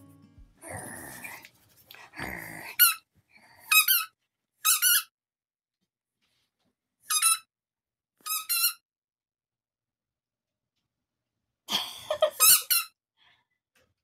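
A dog chewing a squeaky tennis ball, squeezing out short squeaks one at a time with pauses between, then a quick run of several squeaks near the end. Softer chewing and rustling sounds come before the first squeaks.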